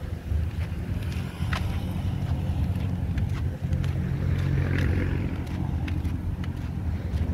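Low, fluctuating rumble of wind buffeting a phone microphone outdoors, with a few faint clicks.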